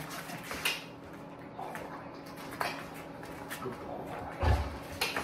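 Scattered light knocks and rustles from a handler and a young Malinois moving about on a mat, with one dull thump about four and a half seconds in.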